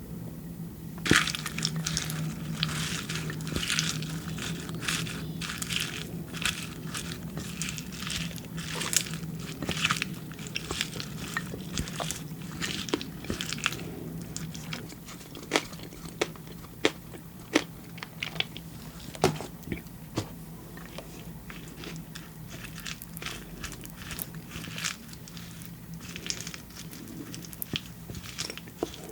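Close-miked mouth eating sounds: chewing with rapid wet clicks and crackles for the first half, thinning to scattered single clicks and pops later.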